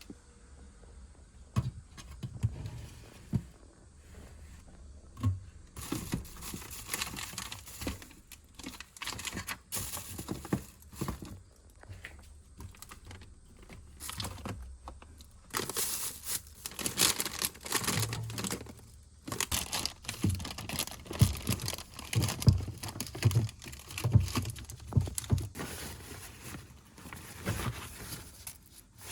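Plastic packaging crinkling and rustling among clicks and knocks of household items being handled, in irregular bursts that become busier from about six seconds in.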